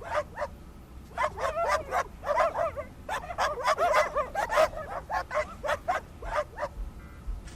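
A dog barking in quick runs of short, high-pitched yips, several a second, with brief pauses between runs.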